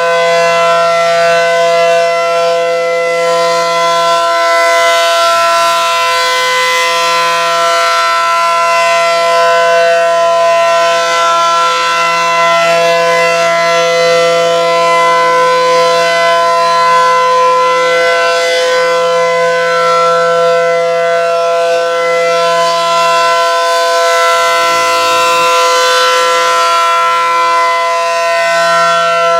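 ACA Allertor 125 outdoor warning siren sounding a loud, steady tone at full pitch during its monthly test.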